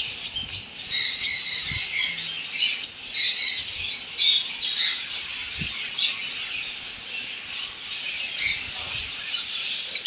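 Many captive small parrots calling over one another in an aviary, a constant high chatter of short overlapping calls.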